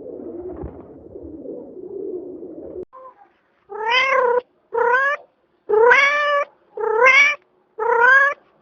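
A domestic cat meowing five times, about once a second, each meow rising slightly in pitch. The meows follow a low, uneven murmur that stops about three seconds in.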